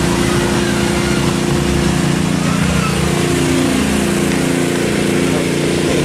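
An engine running steadily at constant speed, a continuous even hum, with a faint falling tone about three to four seconds in.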